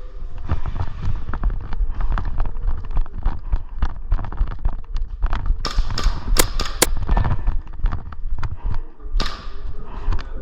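Airsoft gunfire: a few sharp single cracks about six to seven seconds in and another near the end, over steady footsteps and thuds of gear being moved.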